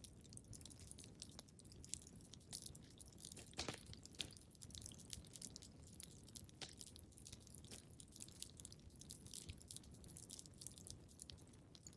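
Wood fire crackling and popping in a fireplace: a steady run of small sharp crackles over a low rumble, with a couple of louder pops about four seconds in.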